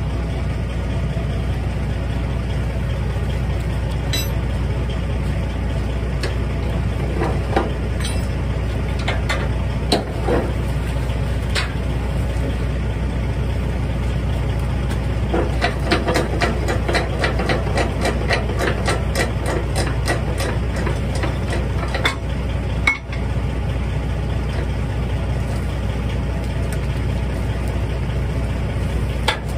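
Diesel log truck idling steadily underneath runs of rapid metallic clicking from a ratchet strap binder on the log trailer being worked by hand. The clicking is busiest in a long run about halfway through.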